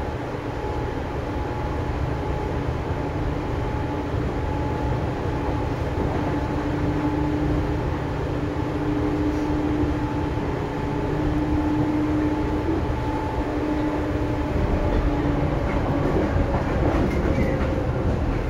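Seibu 2000 series electric train (set 2083F) running, heard from inside the car above its line breaker: a steady rumble of wheels on rail with steady humming tones from the traction equipment, and a few brief clicks near the end.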